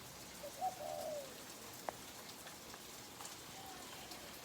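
A dove cooing: a soft call about half a second in and a fainter one near the end. Light rain drips underneath, with scattered ticks of falling drops.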